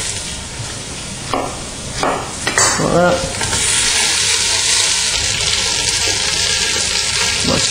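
Garlic and chopped onion sizzling in hot olive oil in a pan, with a couple of short knocks in the first three seconds; the sizzling grows louder and steadier about three seconds in as the onion starts to fry.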